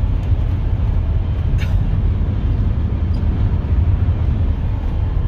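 Steady low rumble of a moving vehicle, road and engine noise, with a faint click about a second and a half in.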